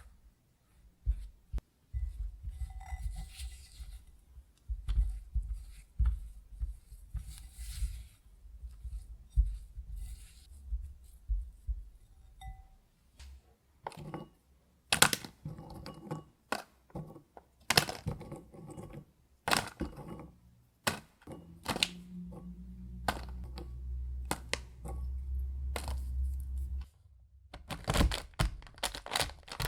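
Kitchen handling sounds while making cookies by hand: soft low thuds for the first half, then a run of sharp clicks and knocks, with a steadier low hum for a few seconds near the end.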